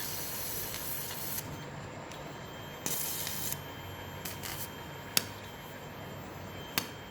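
Electrosurgical cautery pencil hissing and sizzling in short spells as it is applied in unipolar mode. There is a sharp snap about five seconds in and another near the end.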